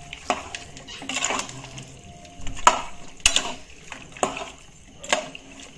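A metal ladle stirring chunky chicken curry in a pressure cooker, knocking and scraping against the pot about once a second.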